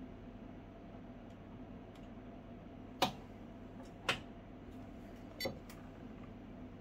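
Three sharp clicks, spaced about a second apart and the last one rattling briefly, over a steady low hum: handling sounds as the radio transmitter is picked up.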